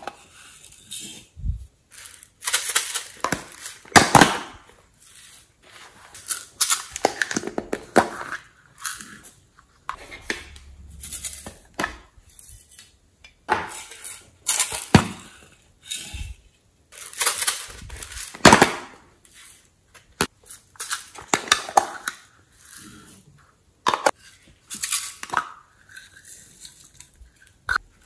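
Small plastic slime tubs being handled, tapped and opened, and their contents tipped into a glass dish: irregular clicks, taps and scrapes coming every second or so.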